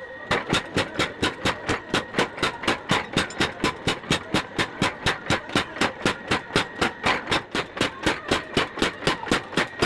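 Homemade mechanical power hammer pounding red-hot leaf-spring steel: rapid, even blows, about four to five a second, as the blade is drawn out under the ram.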